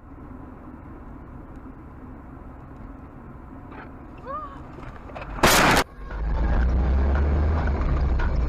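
Dashcam audio of a car driving on a highway: steady road and engine noise heard from inside the cabin. About five and a half seconds in, a loud, harsh burst of noise lasts half a second, then a louder, deeper driving rumble begins.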